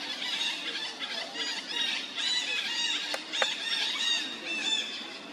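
Macaque squealing: a rapid series of short, high-pitched arched calls. A brief sharp click comes a little after three seconds in.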